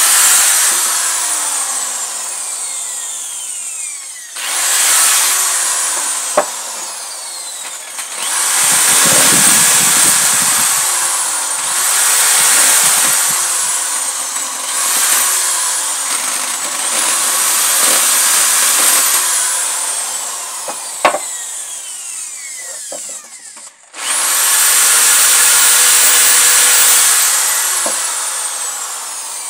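Handheld electric drill boring holes through a wooden board. Over and over, the motor's high whine rises to speed as the trigger is squeezed, the bit grinds through the wood, and the pitch falls away as the trigger is let go, with a few sharp clicks in between.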